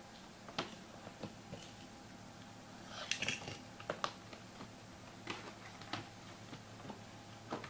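Hands handling and opening a cardboard trading-card box: scattered light taps and clicks, with a brief rustle about three seconds in, over a faint steady hum.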